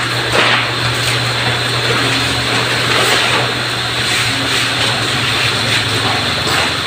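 Steady droning hum of a running room fan, with brief rustles of large paper charts being handled.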